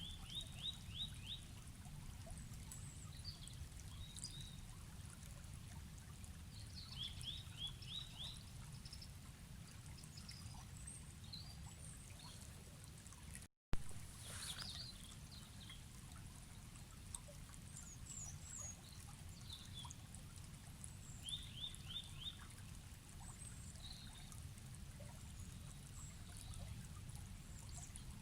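A river running with a steady low rush while birds sing: one bird repeats a short phrase of four or five quick notes several times, and other chirps come in between. About halfway through, the sound drops out for a moment and comes back with a sharp click.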